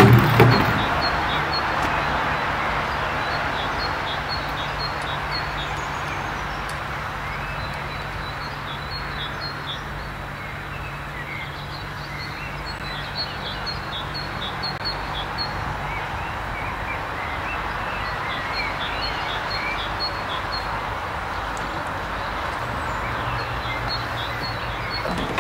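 Outdoor ambience: birds chirping again and again over a steady hiss of background noise, with a faint low hum underneath.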